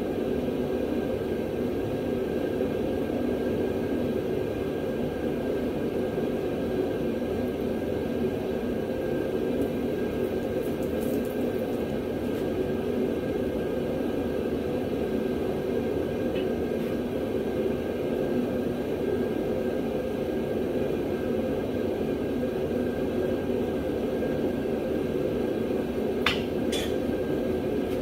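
Steady rushing air noise from shop air equipment running without a break while rags and filings are forced out of a brake-cleaner-soaked rear axle tube, with a faint high steady tone. A couple of sharp clicks come near the end.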